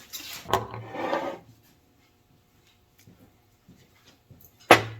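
Steering gear box parts being worked apart by hand: a scraping, rubbing sound for the first second and a half, a few faint clicks, then one sharp knock near the end.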